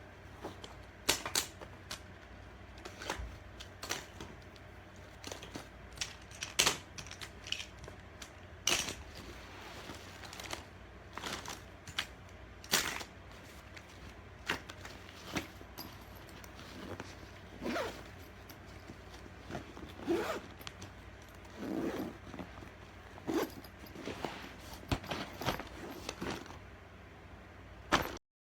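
Plastic magnetic building tiles being handled, with irregular sharp clicks and clacks as pieces are picked up and snapped together. The sound cuts off abruptly near the end.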